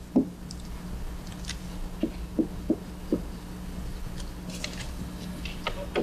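Quiet studio room tone: a steady low hum with a few soft, short taps, several of them close together near the middle.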